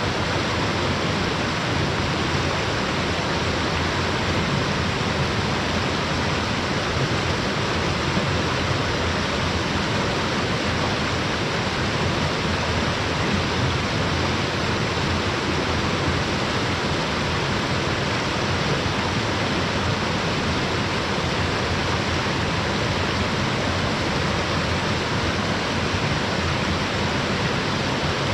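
Waterfall falling steadily into its pool: an even, unbroken rush of water.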